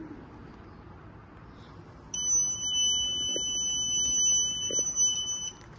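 Piezo buzzer of a Growatt SPF5000ES off-grid solar inverter giving one steady high-pitched beep of about three and a half seconds as the unit powers up.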